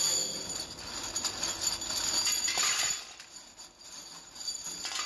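Metal motorcycle brake shoes jingling and clinking against each other as they are raked out of a pile by hand and dropped into a metal bowl, with a quieter lull about three seconds in.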